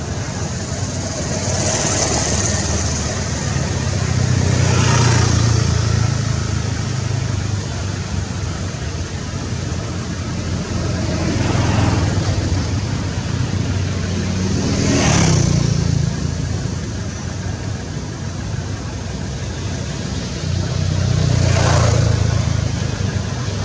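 Motor traffic passing: vehicle engines rumble and swell, then fade, several times, over a steady background hum.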